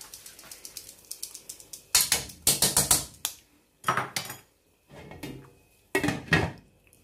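Cookware clatter at a non-stick wok: chopped coriander tipped in from a metal mesh strainer, with a run of knocks and scrapes about two to four seconds in, then a glass pan lid set down on the wok with a clink about six seconds in.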